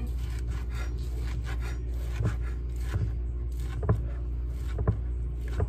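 Chef's knife cutting through cooked chicken breast and knocking down onto a cutting board: several short taps at uneven intervals, with a soft scraping of the blade between them, over a steady low hum.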